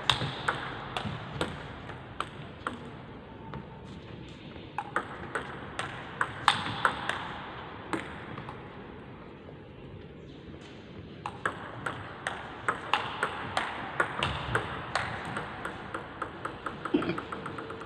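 Table tennis ball clicking off the paddle and table, hit after hit, with a quieter spell midway and then a fast run of hits, several a second. Each click echoes briefly in a large hall.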